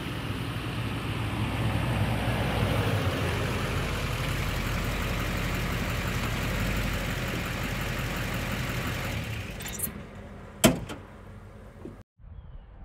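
The 6.6-litre LBZ Duramax turbodiesel V8 of a 2006 Chevy 3500HD dually pickup driving up and past, getting louder as it comes close and then fading away. A single sharp knock near the end.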